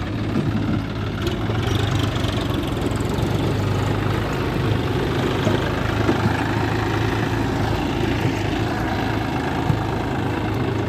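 Diesel engine of a backhoe loader or tractor running steadily at a low, idling speed.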